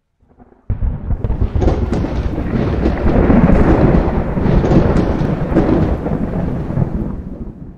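Thunder-like rumbling sound effect for a logo intro. It starts suddenly about a second in, swells through the middle and fades away near the end.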